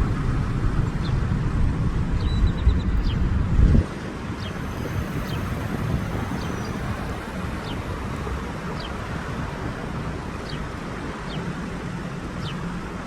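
Traffic noise with a low wind rumble on a phone's microphone; the rumble is heavier for the first few seconds, then drops off suddenly. Faint short high chirps come every second or so.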